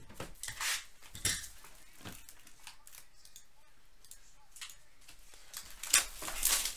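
Plastic shrink wrap being torn and peeled off a sealed trading-card hobby box, in a few short bursts, the loudest near the end.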